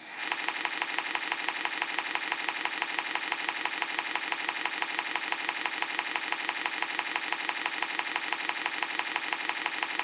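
Cicada song: a steady, rapidly pulsing buzz with no break.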